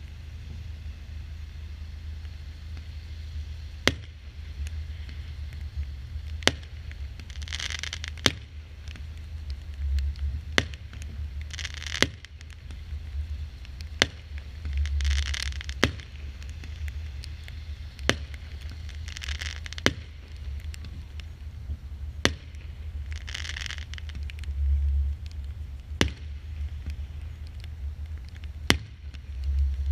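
A consumer fireworks battery firing aerial shots, a sharp bang roughly every two seconds at uneven spacing. Between them come short bursts of hissing crackle, under a low rumble.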